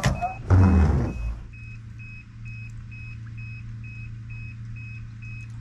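Dashboard warning buzzer of a 1988 Toyota FJ62 Land Cruiser beeping in short, evenly spaced high pulses about twice a second over a steady low hum, with a click and a brief rustling thump near the start.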